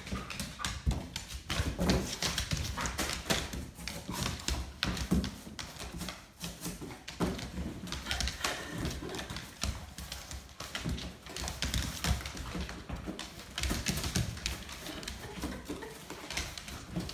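A dog's claws clicking and skittering irregularly on a hardwood floor as it scrambles about, mixed with the knocks and scrapes of a large cardboard box being handled.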